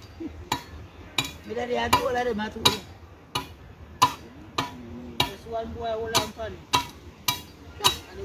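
Machete (cutlass) being sharpened by hand, the steel blade drawn over a file in a steady rhythm: a sharp metallic scrape about every half second to second, some thirteen strokes in all.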